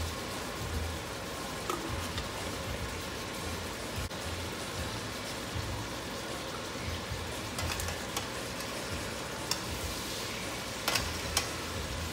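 Thin steaks sizzling steadily as they fry in butter and olive oil in a stainless steel skillet, with a few sharp clicks near the end.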